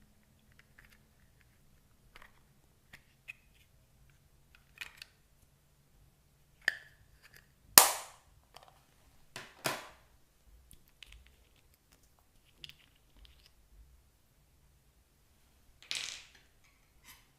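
Slime being mixed and worked by hand, giving scattered sharp pops and clicks, the loudest about eight and ten seconds in and another near the end.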